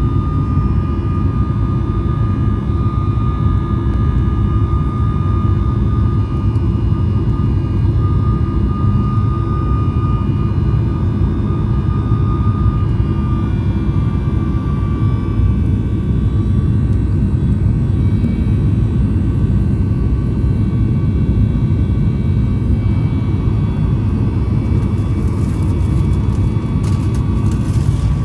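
Boeing 737 MAX 9 cabin noise: the CFM LEAP-1B engines running at steady high power, heard from inside the cabin as a deep, even rumble with a steady high whine over it.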